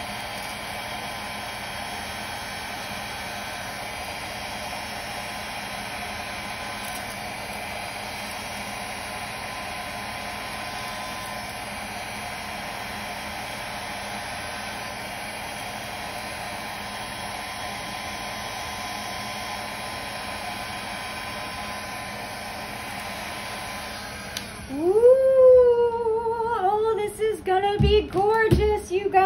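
Hair dryer running steadily on its low, cool setting, blowing air. It cuts off about 24 seconds in and dogs start howling, long cries that rise and then waver and fall, overlapping near the end.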